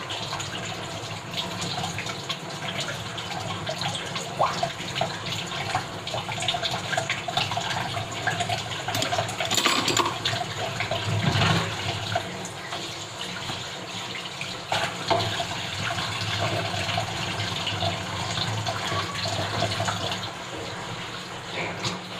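Tap water running into a kitchen sink while dishes are washed by hand, with occasional knocks and clatter of dishes against the sink.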